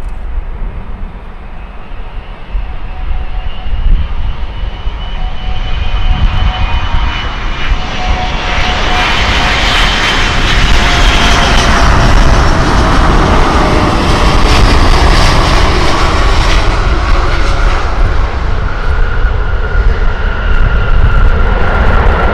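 Airbus A380's four Engine Alliance GP7270 turbofans, a jet roar that builds about eight seconds in and stays loud, with whining tones that slide down in pitch.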